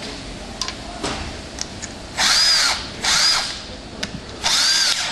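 Cordless drill triggered in three short bursts, its motor whining up and falling back each time, as the bit is swapped for a screwdriver bit and the chuck run tight. A few light clicks come before the bursts.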